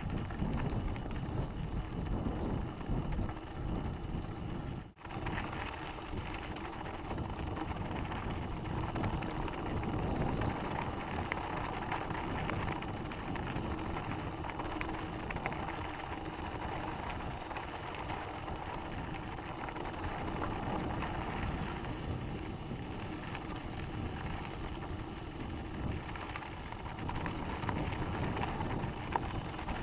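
Mountain bike rolling down a dirt and gravel fire road: knobby tyres crunching and crackling over loose gravel, with the bike rattling. The sound cuts out for a split second about five seconds in.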